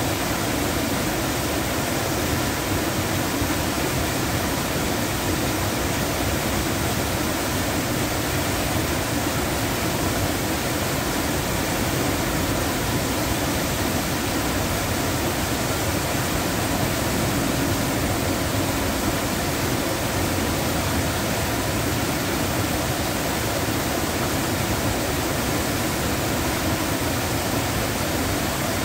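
Water spilling over a low log dam and rushing over the rocks below, a steady, even rush.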